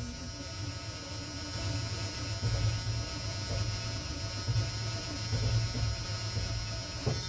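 Starter cranking an old OBS Ford pickup's engine for about seven seconds, a steady low whirr with a few louder surges, without the engine catching. The owner takes the way it tries to start as a sign of a fuel-supply problem.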